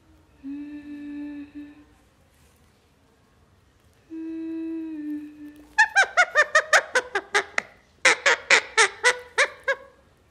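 Parrot calling: two held, hum-like notes, then two bursts of rapid sharp calls at about six a second, which are the loudest part.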